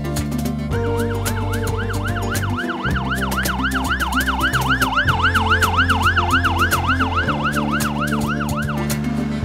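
Fire truck's electronic siren in fast yelp mode, rising and falling about three times a second, over background music. It starts about a second in and cuts off near the end.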